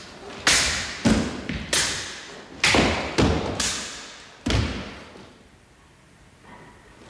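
Japanese sword cutting rolled straw mat targets in quick succession: about eight sharp hits over some four seconds, cuts and falling pieces landing on a wooden floor, echoing in a large hall.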